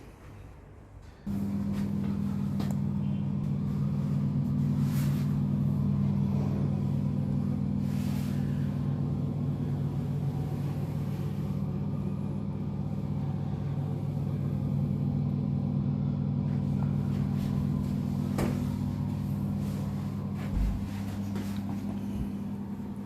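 Steady low engine hum of a running motor vehicle, starting abruptly about a second in and holding an even pitch, with a short thump near the end.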